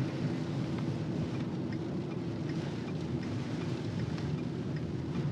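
Steady road and engine rumble inside a moving car, with scattered light taps of rain on the car.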